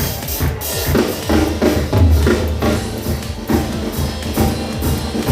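Loud dance music with a driving drum kit beat: bass drum, snare and heavy bass.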